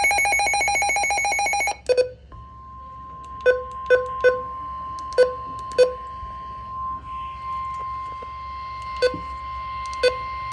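Weather radio alert tones: about two seconds of rapidly pulsing electronic beeping, then the steady single-pitched NOAA Weather Radio warning alarm tone, broken by scattered sharp clicks.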